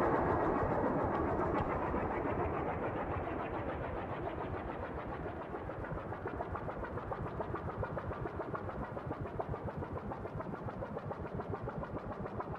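Synthesized psychedelic electronic sound effect: a dense, churning noise that slowly fades and, about halfway in, breaks into a fast, even fluttering pulse.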